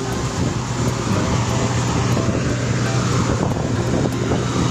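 Outrigger fishing boat's engine running steadily as the boat moves through the sea, a constant low drone with wind and water hiss over it.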